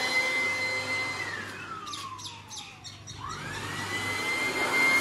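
Vacuum cleaner motor running with a steady high whine, switched off about a second in so that it winds down, then switched back on and spinning back up to full speed, with a few clicks in between.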